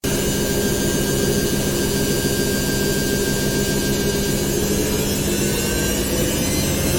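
Washing machine running steadily: a constant motor hum with whining tones over a rushing noise. A few of the tones sag slightly in pitch partway through.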